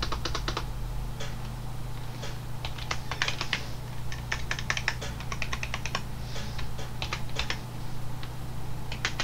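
Computer keyboard being typed on, the keys clicking in quick irregular bursts with short pauses between them.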